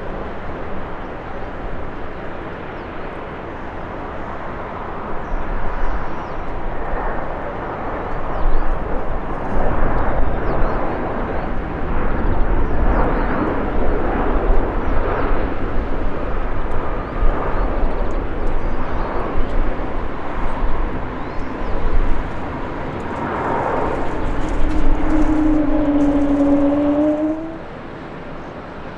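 Airbus A320-200 jet airliner landing, its engines a steady rushing noise that swells as it passes. Near the end there is a brief rising whine, then the sound drops off abruptly.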